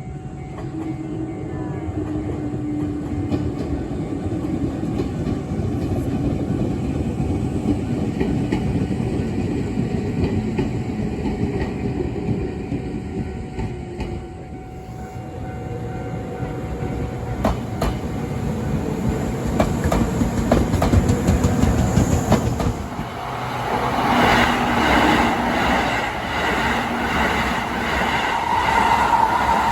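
An electric commuter train passing over a level crossing at speed, with a steady rumble and wheels clacking over the rail joints. From about two-thirds of the way in, the crossing's warning bell rings over and over.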